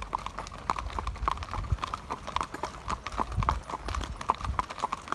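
Horses' hooves clip-clopping at a walk on a paved road, a steady, uneven run of sharp strikes several times a second over a low rumble.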